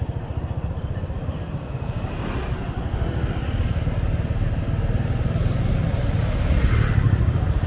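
Motorbike engine running steadily while riding, a low pulsing rumble that grows louder in the second half.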